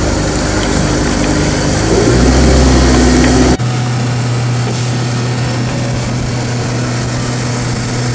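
Mercury outboard motor running on a small boat, growing louder about two seconds in. It cuts abruptly to a steady drone with the boat underway at speed, with wind and water rushing by.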